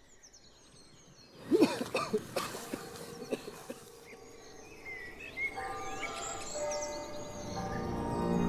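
Birds chirping, with a sudden rush of noise about a second and a half in. From about five seconds in, soft ambient music fades in and grows louder.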